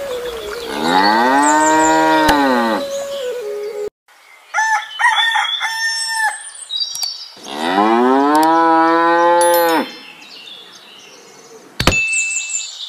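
Cow mooing, two long moos that rise and then fall in pitch, with a shorter, higher call between them.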